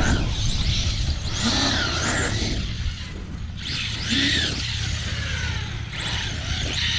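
Electric motor of a 12S large-scale RC truck whining, rising and falling in pitch through three bursts of throttle with short lulls between, over a steady low rumble.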